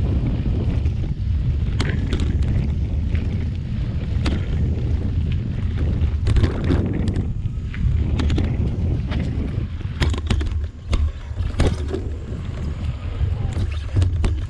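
Mountain bike riding over a dirt singletrack: wind rushing over the camera's microphone and knobby tyres rumbling on dirt and dry leaves, with frequent sharp clicks and rattles.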